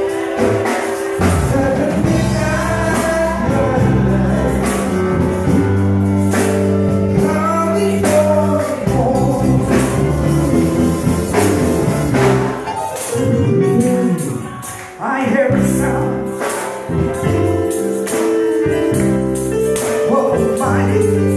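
Live gospel worship music: keyboard and guitar holding sustained chords, with a tambourine shaking and voices singing.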